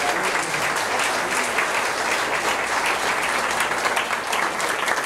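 Audience applauding, a dense steady clapping that keeps up evenly.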